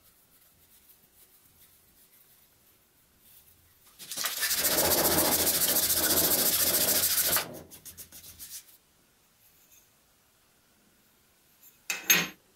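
Abrasive rubbing on the edge of a small aluminium plate clamped in a vise: a steady, loud scraping for about three and a half seconds in the middle, breaking into a few short strokes before it stops. Near the end, a brief clatter as a metal plate is set down.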